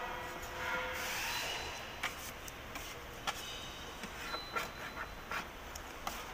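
Hand scraper scraping old seam sealer out of a car body panel's seam: one longer scratchy stroke, then a run of short, sharp scrapes and clicks as the blade catches and chips the sealer.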